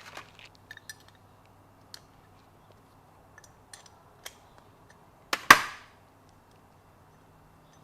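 Small metal clicks and taps of carburetor parts and hand tools being handled on a workbench, with one sharp, much louder double knock with a brief ring about five and a half seconds in, as of a tool or part set down hard.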